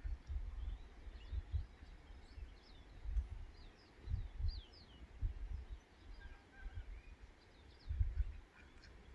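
Small birds chirping in quick, high, falling notes, busiest in the first half, over gusts of wind buffeting the microphone.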